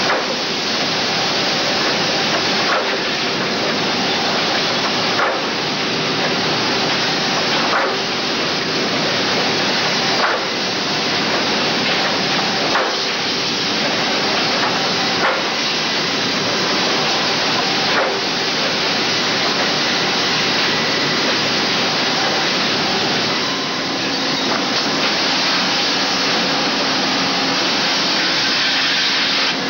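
Sawmill multi-saw resaw with automatic board infeed running: a loud, steady din of saws and feed machinery with a low hum, and a short knock about every two and a half seconds for the first part.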